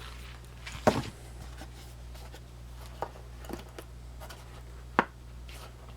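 A Victorinox pocket knife being handled and put back into its magnetic presentation box: a few clicks and light knocks, the loudest a dull knock about a second in, and a sharp click near the end. A low steady hum runs underneath.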